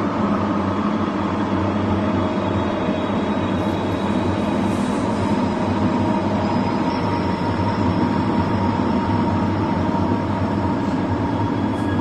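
Void scream sound effect: a steady, dense rumbling noise with faint thin whistling tones drifting above it, keeping an even level throughout.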